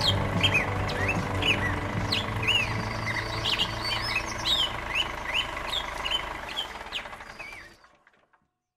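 Small birds chirping over and over in short, quick, falling chirps, above a low steady drone. Everything fades out just before the end.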